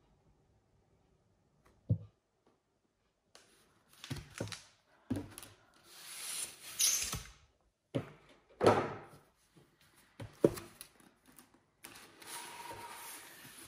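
Cardboard packaging handled by hand: a thump about two seconds in, then the printed outer sleeve scraping and sliding off a white cardboard box, with several knocks as the box is set down on the table, and a longer steady rubbing near the end as the lid slides off.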